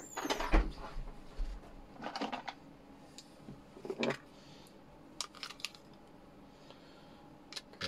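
Small plastic clicks and taps from handling the opened case of a plug-in power meter while a battery is pressed into its battery holder. A burst of handling noise at the start, then sparse light clicks.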